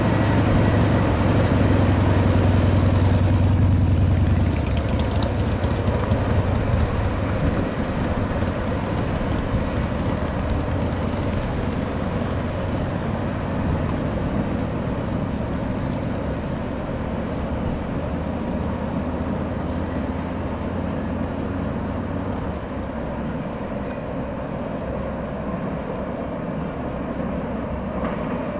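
The rear of a CSX container freight train rolling past and pulling away: a steady rumble of wheels on the rails, loudest for the first four seconds and then slowly fading.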